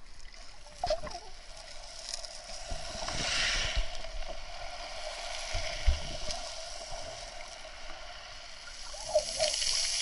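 Sea water heard underwater: a muffled, steady wash and sloshing that swells twice, with a few dull knocks.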